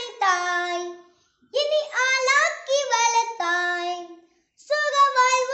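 A young boy singing a Tamil patriotic song unaccompanied, in long held phrases broken by two short pauses.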